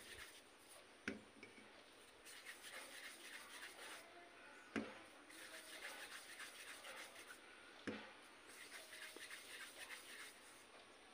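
Faint rubbing of soft maida dough being rolled into small balls between the palms, with three light knocks about three seconds apart.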